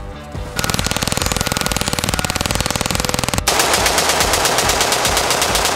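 Rapid fully automatic rifle fire in two long strings. The first starts about half a second in and lasts nearly three seconds. After an abrupt cut, a second, slightly louder string runs on through the rest.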